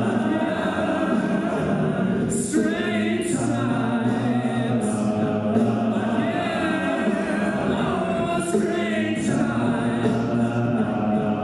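A cappella vocal group singing sustained chords with no clear words, with a few crisp hissing percussive strokes along the way.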